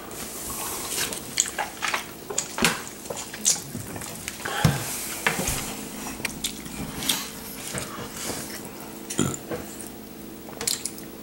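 Chewing and mouth noises of someone eating chicken nuggets fast, with scattered small clicks and knocks, over a steady hum.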